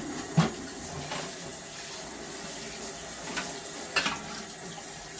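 Water running steadily from a kitchen tap into a sink, with a short knock just after it starts and another about four seconds in.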